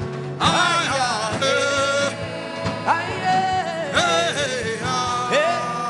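Worship music: a voice singing long held notes with slides between them, over a steady instrumental accompaniment. The singing comes in about half a second in.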